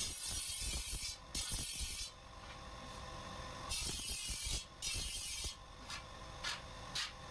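Grinding machine working the steel blade of a chaff cutter (gandasa), sharpening its edge and cutting its teeth, in four long bursts of grinding and two short touches near the end, with the motor running steadily in between.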